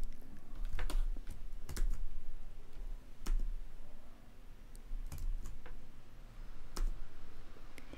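Computer keyboard keys and mouse buttons tapping in short, irregular clicks as shortcuts are pressed to duplicate and rotate objects.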